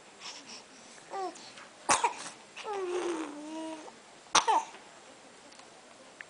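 Two sharp coughs about two and a half seconds apart. Between them is a drawn-out voiced sound that falls in pitch, and a short falling squeak comes before the first cough.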